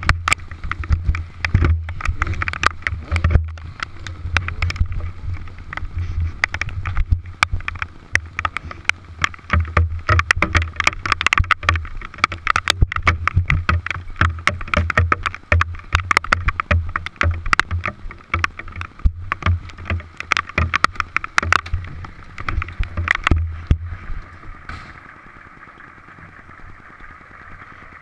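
Hailstones pelting a helmet-mounted camera: a dense, rapid clatter of hard impacts over gusty wind rumble. About 25 seconds in, the clatter stops and only a softer steady hiss of the storm remains, as heard from under cover.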